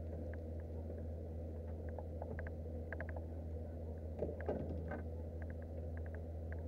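A freshly caught fish being unhooked from a string of mackerel feathers on a boat deck: scattered light clicks and a few louder knocks of fish and tackle against the boat, loudest a little past the middle, over a steady low hum.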